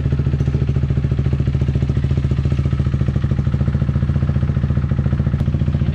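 KTM 390 Duke's single-cylinder engine running steadily at idle, freshly rebuilt and just started for the first time.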